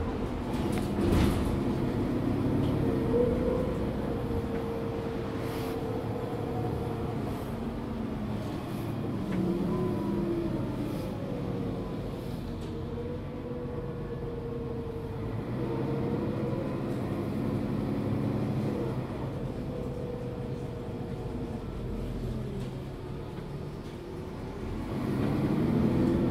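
A 2007 Mercedes-Benz Citaro G articulated bus, its OM457 diesel and ZF Ecomat six-speed automatic running steadily at road speed in fifth and sixth gear. Near the end it eases off and then pulls away again as the gearbox shifts down to first and back up to second.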